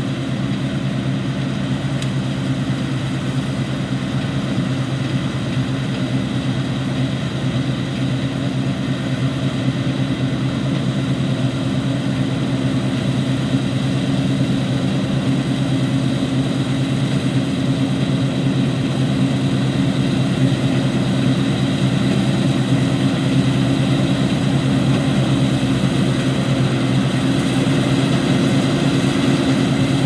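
Claas Lexion 650 combine harvester running steadily while cutting and threshing wheat: a constant engine and machinery hum, growing slightly louder as it comes closer.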